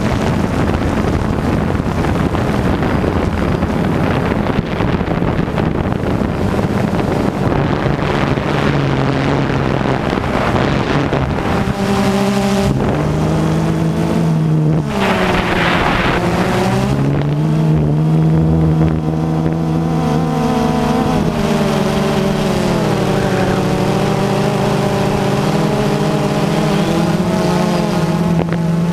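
Multirotor drone's electric motors and propellers heard through the onboard camera's microphone, with wind rush. The sound is at first mostly rough wind noise, then a steady whirring hum comes through whose pitch dips and climbs back about halfway in as the motors change speed.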